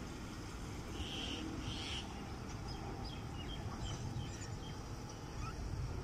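Crows calling: two short harsh caws about a second in, then a run of faint short chirps, over a steady low rumble.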